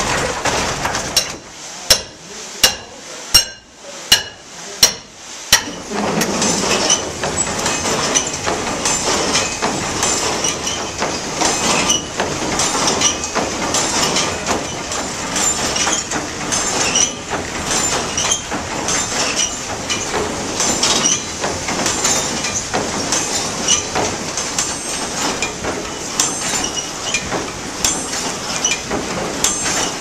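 Water-powered sawmill with wooden gears running: a series of about six sharp, evenly spaced knocks, then from about six seconds in a steady mechanical clatter of wooden gearing and saw works.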